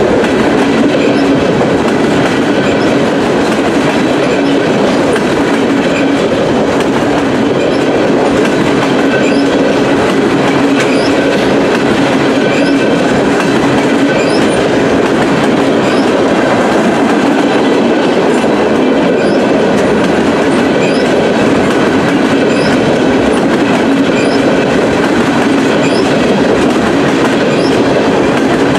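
Freight train of tank cars rolling past close by: steady rumble of steel wheels on rail with a low drone, and faint ticks repeating every second or two as the cars go by.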